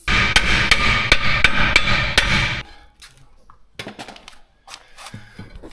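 Impact wrench running in one rapid hammering burst of about two and a half seconds on the brake cylinder bolts, then a few light metallic clicks and knocks.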